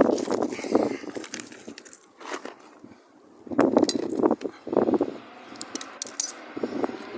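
Clinks, knocks and rattles of a sliding clamp and metal parts being handled and tightened to force a rubber insert into a transmission mount, in two bouts of handling a few seconds apart, with a few sharp high clicks near the end.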